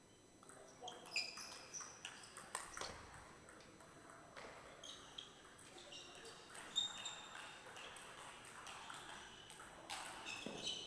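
Table tennis ball clicking off bats, the table and the floor: a run of light, irregular pings, each with a short high ring.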